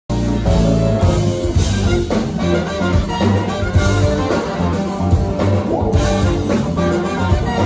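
Live brass-funk band playing: trumpet and saxophone lines over electric guitar, bass guitar and drums, with a steady bass line and drum beat.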